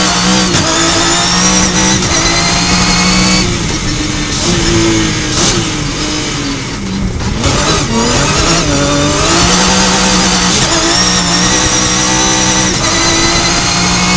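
Rally car engine heard from inside the cockpit, pulling hard with revs climbing through gear changes. About a third of the way in the engine eases off and drops for a few seconds as the car slows, then picks up and pulls hard again.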